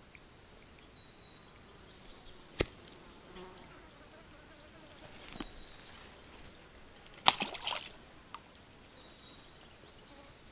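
Faint buzzing of flying insects over a quiet riverbank background, broken by one sharp click about two and a half seconds in and a short run of sharp clicks or jingles a little past seven seconds.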